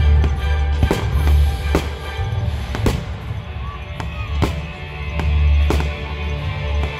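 Fireworks shells bursting in a display, a series of sharp bangs about once a second, over loud music with a heavy bass.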